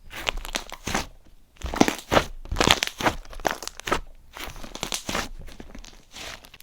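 Slime being squeezed and poked by hand, giving irregular crunching, crinkling sounds several times a second.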